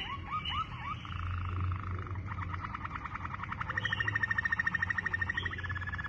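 Waterslager canary singing: a few quick rising notes, then long, very fast rolling trills that step up in pitch a little after halfway through.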